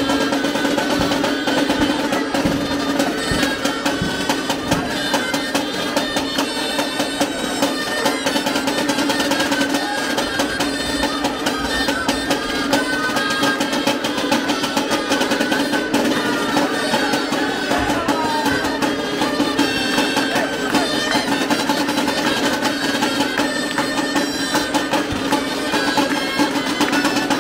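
Traditional street band music: shrill reed pipes playing a tune over snare drums, with a steady low note held underneath throughout.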